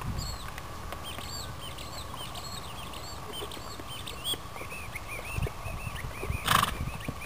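Small birds chirping over and over in short, arched notes, with a faint steady tone beneath. A brief rush of noise about six and a half seconds in is the loudest moment.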